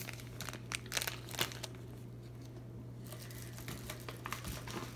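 Clear plastic bags of wax melts crinkling as they are handled. The crackles come quickly over the first second and a half, then there is fainter rustling near the end.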